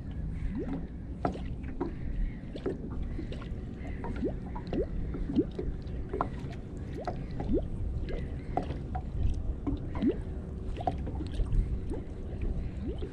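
Small waves lapping against the hull of a small boat on a lake, making short rising plops and gurgles about once a second over a steady low rumble.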